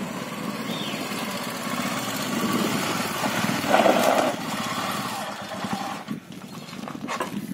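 Motorcycle engine running, a steady low rumble that drops away about six seconds in.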